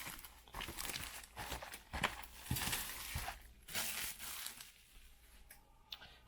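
Plastic shrink wrap being torn and crinkled off a sealed box of trading cards, in irregular rustles that die down near the end.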